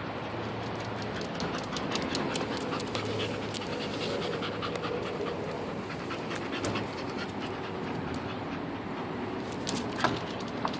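A Pit Bull Terrier mix dog panting, with a run of light sharp clicks through the middle and one louder click near the end, over a steady low hum.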